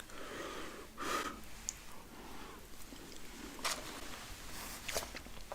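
Close-miked eating sounds: wet chewing and mouth noises with a sharp intake of breath about a second in, and a few crisp clicks and crunches later on.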